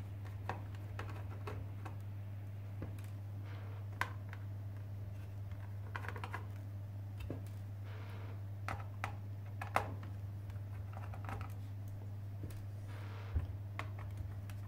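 Scattered light plastic clicks and taps as a laptop keyboard's top edge and its retaining clips are pressed and prised with a small screwdriver, over a steady low hum.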